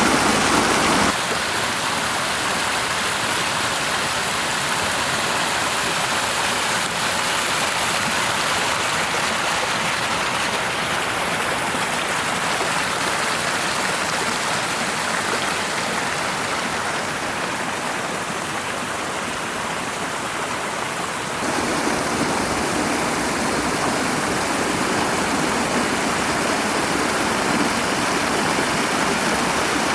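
Waterfall: a steady rush of falling water, its tone changing abruptly about a second in and again about 21 seconds in.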